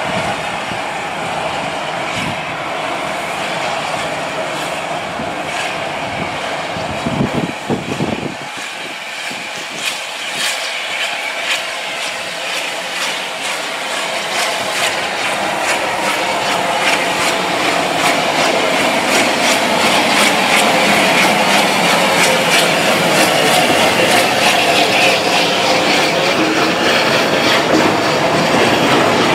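Steam-hauled heritage train running on jointed track, its wheels clicking over the rail joints, growing steadily louder through the second half.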